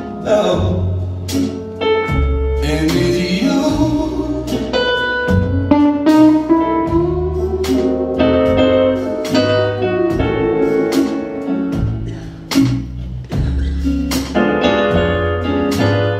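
Live soul-blues band playing an instrumental passage: Gibson semi-hollow electric guitar lines over electric bass, electric piano and drums, with the drum hits keeping a steady beat.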